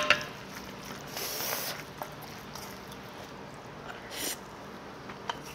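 Metal spoon clinking sharply on a bowl, then short scraping and scooping sounds about a second in and again near four seconds, as soft tofu stew is spooned into a rice bowl.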